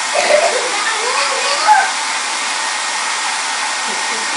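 Handheld hair dryer blowing steadily, with faint voices under it for the first couple of seconds.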